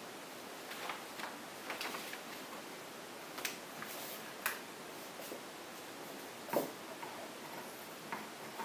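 Scattered light taps, clicks and rustles of a marker, ruler, scissors and fabric being handled on a tabletop while a dog-clothes pattern is marked out on a t-shirt. A single sharper knock about six and a half seconds in is the loudest sound.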